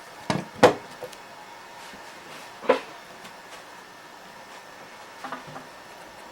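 A few short knocks and clunks of hard objects being handled and put down: a pair about half a second in, the loudest near three seconds, and a softer clatter about five seconds in, over a faint steady hum.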